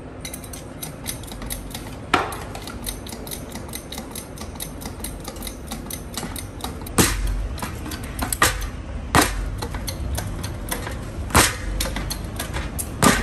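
Hydraulic bottle jack being pumped by hand, with light clicking about three or four times a second, as it presses down on an electric scooter's hub-motor wheel. From about halfway on, five sharp metal hammer blows on the hub motor's axle.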